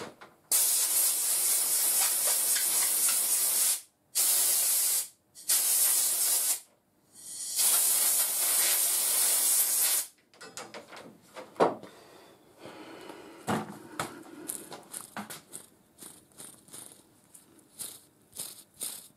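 Compressed-air blow gun hissing in four bursts, the first and last longest, blowing washing fluid out of a just-cleaned lathe live-centre bearing. It is followed by light clicks and rattles as the bearing is handled in gloved hands.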